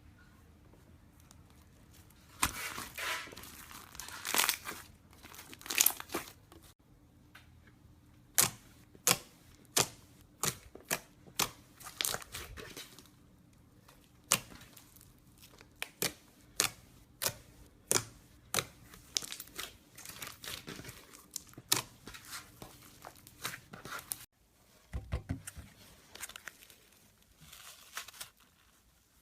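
Slime being pressed and pulled by hand, first crinkling and crackling. Then comes a long run of sharp clicking pops, about one every half second, with a low thud near the end.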